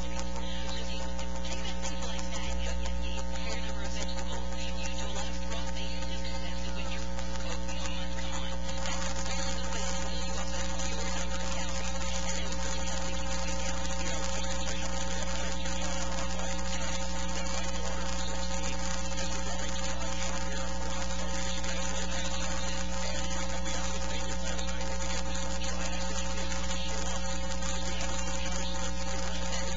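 Steady electrical mains hum with a buzzy edge, under a constant hiss, unchanging throughout.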